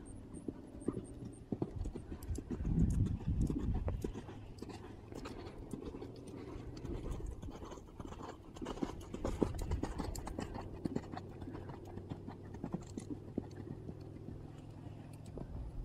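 A Trakehner gelding's hoofbeats on sand arena footing under a rider: a run of dull, rhythmic thuds that swell twice as the horse passes close.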